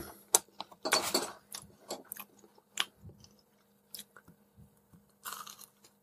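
A person chewing crisp deep-fried fry bread close to the microphone: irregular crunches and clicks of biting and chewing.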